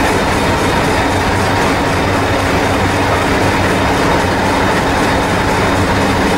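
Hastings diesel-electric multiple unit 1001 standing at the platform with its diesel engine idling: a steady, loud low hum.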